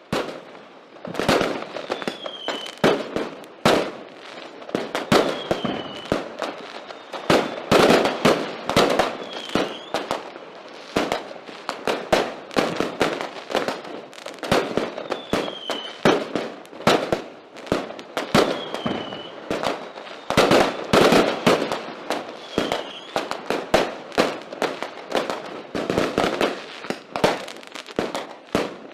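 Fireworks going off in a dense, irregular barrage of bangs and crackling, several a second, with louder clusters and a few short falling whistles now and then.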